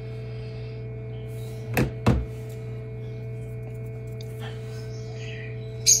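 Steady hum of a small egg incubator's fan running, with two soft knocks about two seconds in and a sharp click near the end.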